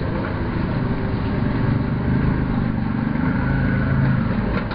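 A motor engine running close by, a steady low drone that grows louder through the middle and eases near the end.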